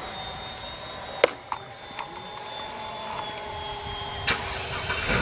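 Freewing Avanti radio-controlled jet's 80 mm electric ducted fan whining high and steady overhead, its pitch sinking slightly as it flies away. A few sharp clicks, the loudest just over a second in.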